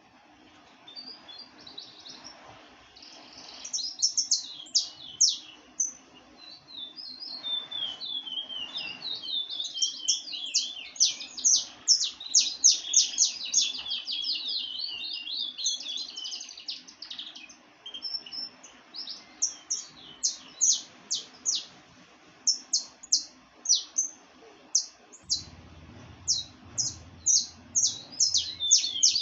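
Songbirds singing: rapid runs of short, sharp, high chirps and trills, coming in bursts and growing busier after the first few seconds.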